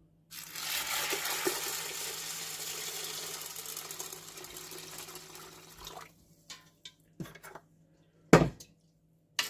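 Water poured from a metal pan into an aluminium pressure cooker of dry popcorn kernels: a steady splashing pour that starts just after the opening, is loudest for the first few seconds and tails off after about five. A few light knocks follow, then one loud thump near the end.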